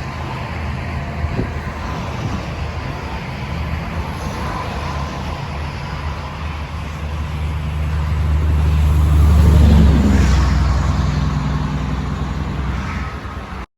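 Road traffic with a low rumble that swells as a vehicle passes close, loudest about ten seconds in, then fades. It cuts off suddenly near the end.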